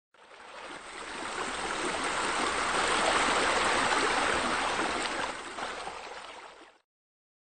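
Running, splashing water: a steady rush that fades in over the first couple of seconds, is loudest midway and fades out shortly before the end.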